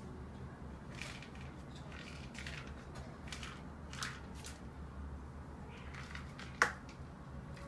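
Kittens chewing and biting at shrimp: soft, irregular squishing and crunching sounds, with one sharp click about six and a half seconds in.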